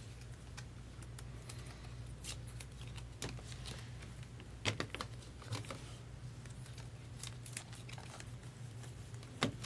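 Trading cards being handled: faint, scattered clicks and rustles as chrome baseball cards are slid and flipped against each other and a clear plastic card holder, over a steady low hum.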